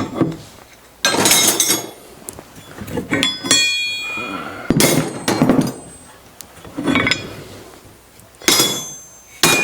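Steel spanners clanking and clinking against each other as they are handled and set down, about six knocks in a row with a metallic ring after one of them.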